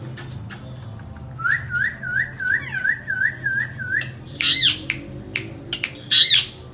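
Indian ringneck parrot whistling a repeated warbling note, about three a second, then giving two loud, harsh screeches, with sharp clicks scattered between.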